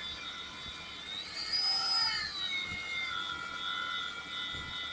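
Magnetic drill motor running under load as its annular cutter bores into a 20 mm steel base plate, a steady whine. About a second and a half in the whine rises in pitch and then drops back.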